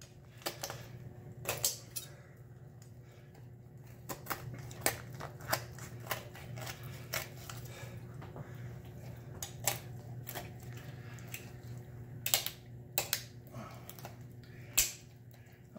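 Kitchen shears cutting through a raw turkey's rib bones along the backbone: irregular sharp cracks and snips, a few louder snaps spread through, over a low steady hum.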